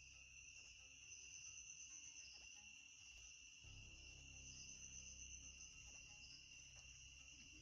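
Near silence: a faint, steady high-pitched whine over a low background rumble.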